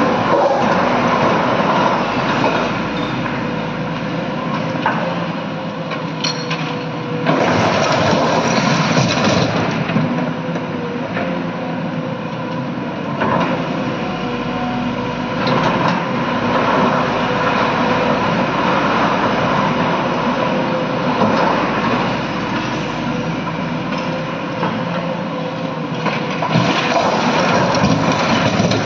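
SANY hydraulic excavator's diesel engine running under load as its bucket digs through blasted quarry rock, with bursts of rocks clattering and crashing about seven seconds in and again near the end.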